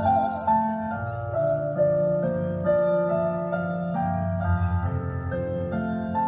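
Electronic keyboard played live and amplified through stage speakers: a gentle instrumental passage of held chords under a stepping melody, just after a woman's sung note ends at the very start.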